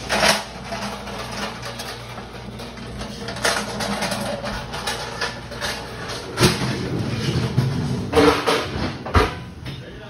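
Irregular knocks and clatter from a manual pallet jack moving a loaded pallet, with sharper knocks about six and a half and nine seconds in.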